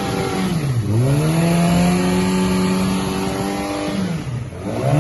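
Yamaha R6's inline-four engine revved up to about 6000 rpm and held there, dropping back and climbing again about a second in, then falling away about four seconds in and revving up once more at the end. At 6000 rpm this engine has an abnormal noise whose cause is not yet known.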